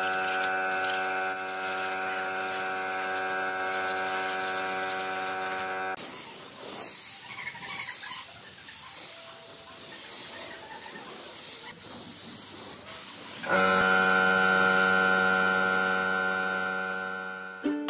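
Spray-finishing rig running: a steady machine hum with a high whine. It drops out for several seconds of softer hiss in the middle, then starts up again.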